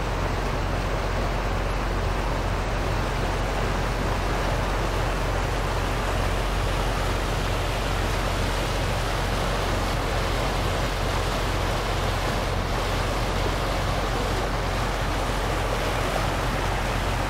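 Water rushing and splashing along the hull of the moving landing craft LCI-713 as her bow wave breaks past, a steady wash over a constant low engine hum.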